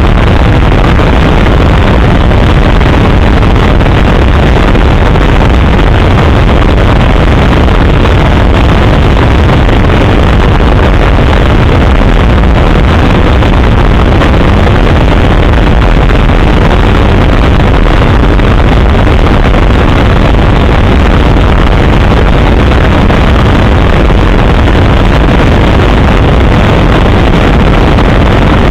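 Helicopter engine and rotor noise, steady and loud, heavy in the low end, heard from inside the cabin in flight.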